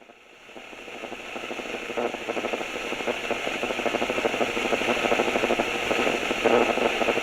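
Cassette tape mechanism running with a steady, fast rattling whir, fading up over the first couple of seconds.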